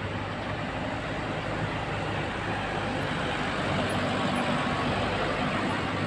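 Bus engine running close by with road and traffic noise, a steady rumble that grows slowly louder.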